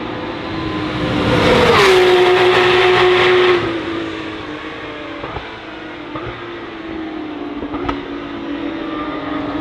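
Porsche 911 GT3 Cup (992) race car's flat-six engine at speed; its note is loudest about two seconds in, where it drops sharply in pitch as it goes past, then it carries on quieter and steadier.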